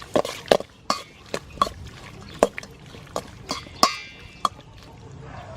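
A utensil clinking against a bowl while raw squid is mixed with seasonings: irregular sharp clinks with a short ring, one or two a second, stopping about four and a half seconds in.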